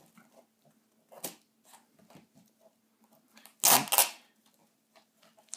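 Scissors and hands working at the packing tape on a cardboard box: scattered small clicks and taps, then a louder, half-second scrape and rustle of tape and cardboard about three and a half seconds in.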